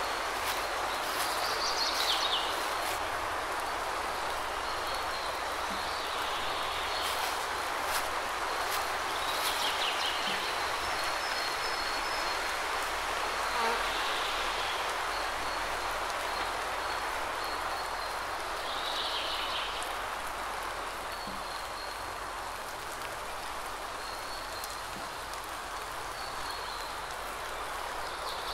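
Steady hiss of light rain falling on foliage and ground, with scattered sharp drop clicks. Short high calls come through every several seconds.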